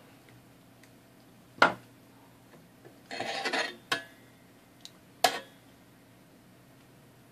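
Small metal cutters and hand tools clicking as the used end of copper desoldering wick is snipped off: three sharp clicks about a second and a half in, near four seconds and just past five seconds, with a half-second scraping rustle shortly before the second.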